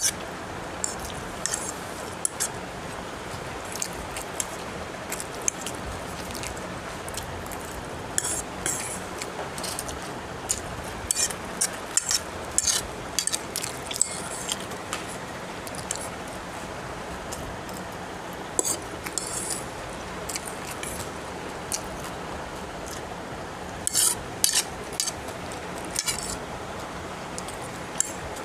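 A metal fork scraping and clinking on a plate while noodles are eaten: irregular short clicks in scattered clusters over a steady background hiss.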